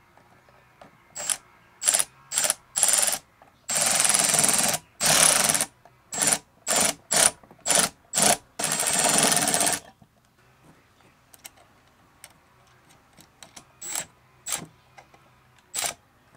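Small cordless electric screwdriver turning a socket, run in a series of short bursts with two longer runs of about a second each, driving a bolt into the inverter's aluminium case. A few more short bursts come near the end.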